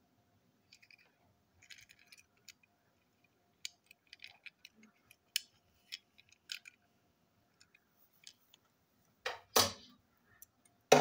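Handling noise of a small toy car turned in the fingers: scattered light clicks and taps, then louder knocks near the end.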